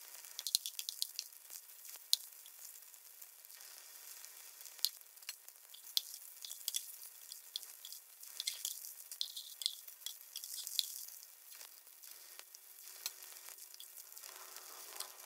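Small vegetable pancakes of chive-and-potato filling frying in oil in a nonstick pan: a steady sizzle with many small crackling pops.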